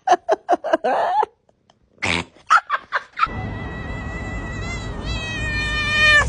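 Domestic cat vocalizing: a quick run of short chirping calls, then after a pause a few more. Then comes one long, high cry of about three seconds that drops in pitch at the end.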